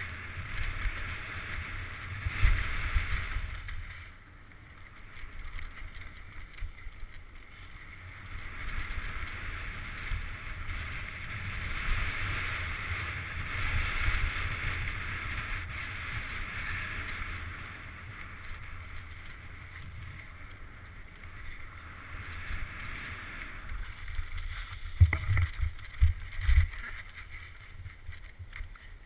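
Mountain bike descending a dirt trail, with wind buffeting a helmet-mounted camera's microphone and tyres rolling over dirt and gravel. A few sharp thumps from the bike hitting bumps come about two and a half seconds in and again around twenty-five to twenty-seven seconds.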